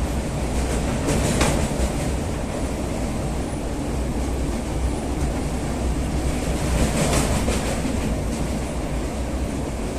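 Passenger train running across a steel-girder bridge: a steady rumble of wheels on rails, with louder clattering about a second in and again around seven seconds in.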